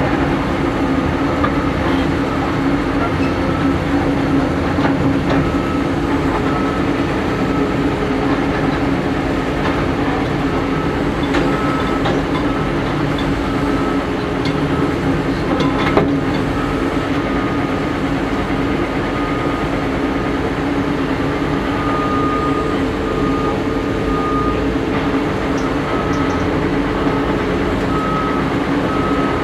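Caterpillar 330D L excavator's diesel engine running steadily under load while it works, with an intermittent high whine over the engine rumble and a sharp knock about halfway through.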